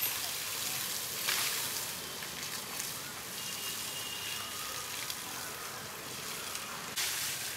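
Water from a garden hose spraying and splattering while an elephant is hosed down: a steady hiss of running water, briefly louder about a second in and again near the end.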